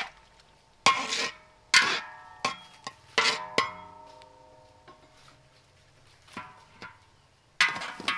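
Metal utensil clanking and scraping in a large steel wok while stir-frying, the wok ringing after each strike: five strikes in the first few seconds, then one last clatter near the end.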